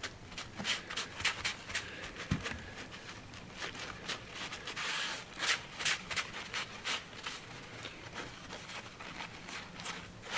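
A folded paper tissue rubbing and dabbing around the base of a glued-down model building, a quick irregular run of short scratchy rustles, with one soft knock about two seconds in.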